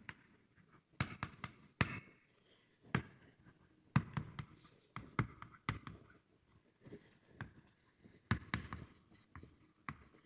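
Writing on a board: irregular sharp taps and short scratchy strokes as a formula is written out.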